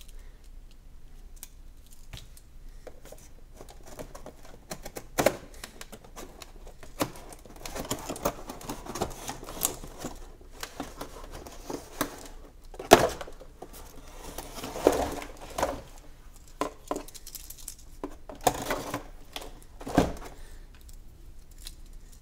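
Cardboard toy box being handled and turned over on a table by hand: irregular scraping and rustling of card with scattered sharp knocks and clicks, a few louder ones partway through and near the end.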